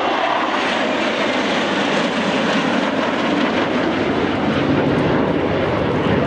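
Jet engines of three F-16 fighters flying past in formation, a loud continuous jet noise whose main pitch sinks lower as they go by.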